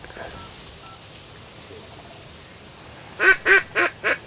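Duck call blown by a hunter: a quick string of five loud quacks about three seconds in, each a little softer than the last, a falling-off cadence meant to draw circling ducks in.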